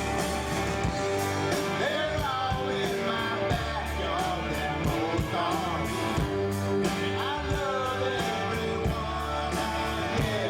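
Background rock song with guitar, drums and a sung melody, playing steadily.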